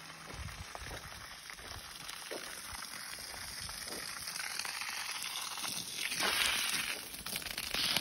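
Water jetting upward from the open end of a garden hose, a steady hiss of spray that gets louder about six seconds in. Faint rustling of tall grass being walked through.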